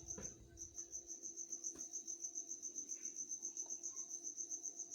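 A cricket chirping steadily: a high-pitched trill in even rapid pulses, about nine a second, with a faint low hum underneath and a soft knock right at the start.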